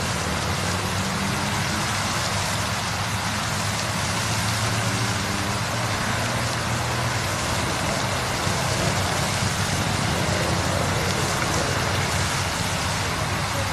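Steady hiss with a faint low hum underneath, even and unchanging, with no distinct calls, splashes or other events standing out.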